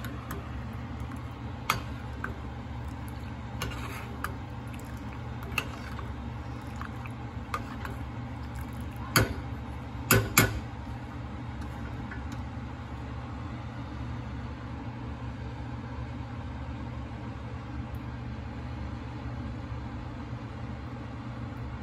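Pot of milky Kashmiri chai boiling on the stove under a steady low hum, with scattered small clicks and a few sharp knocks of the pot, loudest about nine and ten seconds in.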